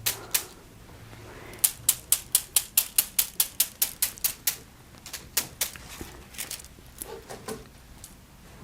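A quick, even run of sharp clicks or taps, about five a second, starting a second and a half in and lasting about three seconds, followed by a few sparser, softer clicks.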